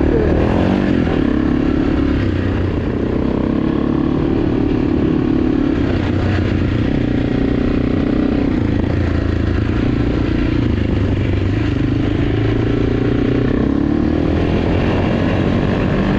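AJP PR7 single-cylinder motorcycle engine running while riding off-road, its revs rising and falling gently, with some clatter from the bike over rough ground.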